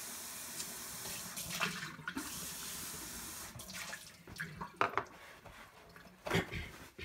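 Kitchen faucet running into a stainless steel sink, shut off about halfway through, followed by a few sharp clicks and knocks of things being handled.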